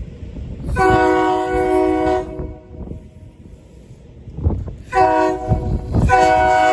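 SEPTA regional rail train's multi-note horn sounding for a grade crossing: a long blast, a short one, then another long blast starting near the end, over the low rumble of the approaching train.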